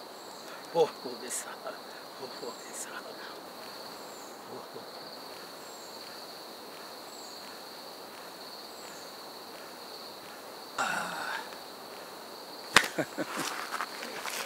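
Crickets chirring steadily in the night. A few soft knocks and a brief rustle about eleven seconds in break through, then near the end a sharp knock followed by several lighter thuds.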